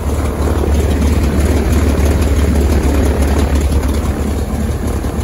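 Cessna 310's six-cylinder Continental engine running steadily with its propeller turning, a strong even low drone. It is a ground run to check that the new intake coupling and drain line have cured the oil leak.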